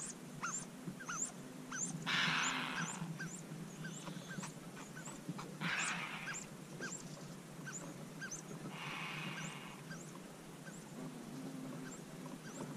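Eurasian hoopoe nestlings begging from a tree-hole nest: short high calls repeated about twice a second throughout. Three louder hissing bursts break in, about two, six and nine seconds in.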